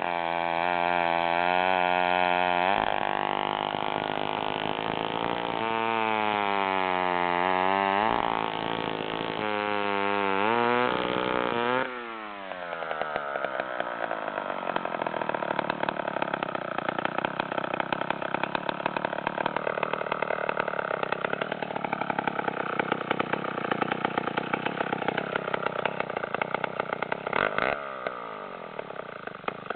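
Vintage Sears U4G two-stroke chainsaw at full throttle, its engine note sagging and recovering twice as the 1/2-inch pitch chain bites into wood. About twelve seconds in the revs fall away and it settles to an idle with distinct, evenly spaced firing beats.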